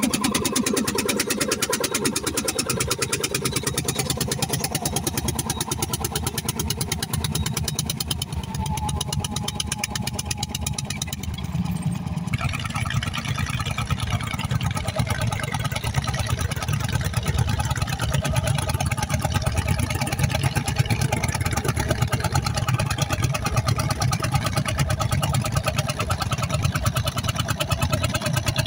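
Landini testacalda tractors' single-cylinder two-stroke hot-bulb engines chugging with a fast, even beat while pulling ploughs under load.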